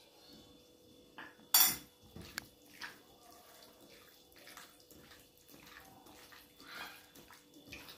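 A spoon knocking against a bowl, loudest once about a second and a half in, then soft, irregular wet clicks and squelches of diced chicken being mixed by hand in an oil-and-spice marinade with honey.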